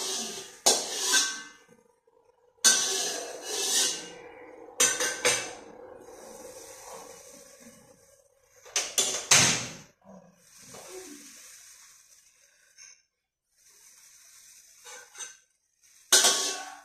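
Metal spatula scraping and knocking against a steel wok in a handful of separate strokes a few seconds apart, the last near the end. Between the strokes the hot contents of the wok keep up a steady sizzling hiss.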